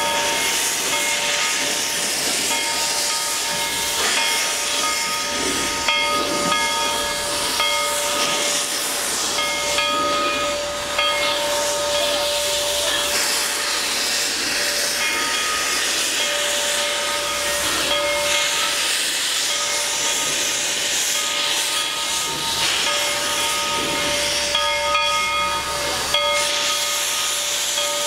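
Steam hissing steadily from the pile driver's steam plant, with a faint whistling tone that comes and goes and a few light knocks.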